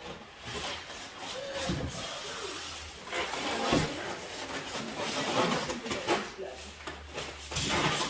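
Cardboard box and foam packaging being handled and pulled about, rustling and scraping with a few light knocks.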